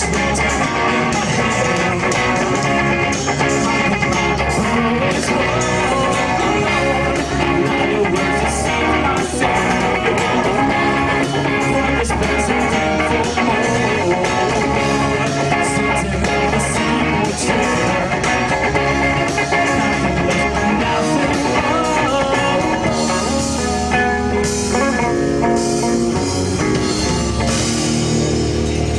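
Live rock band playing an instrumental passage, guitar to the fore over a steady drum beat.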